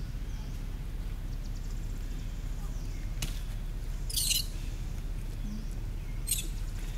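Dry leaf litter rustling and crackling briefly twice, the louder burst about four seconds in and a shorter one about six seconds in, with a single click just before, over a steady low rumble.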